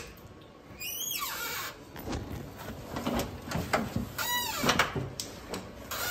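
A locker key clicking in the lock, then the locker door opening and a nylon backpack being pulled out and handled: knocks and fabric rustling, with a couple of short squeaks.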